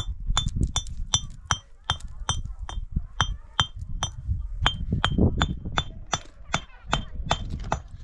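A hammer striking metal in a steady run, about two and a half blows a second with a short pause about four seconds in. Each blow rings briefly, as when driving nails into the hut's frame.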